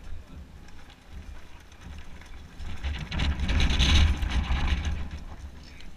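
Mountain bike rolling off over loose gravel: tyres crunching and the rear freewheel hub ticking, over a steady low rumble of wind on the microphone. The rolling noise swells and is loudest around three to five seconds in.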